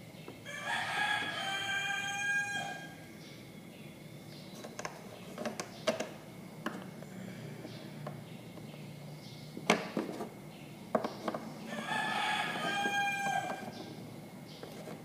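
A rooster crowing twice, about ten seconds apart, each crow lasting about two seconds. In between, a few sharp taps and knocks of small plastic toy figures being handled on a wooden shelf.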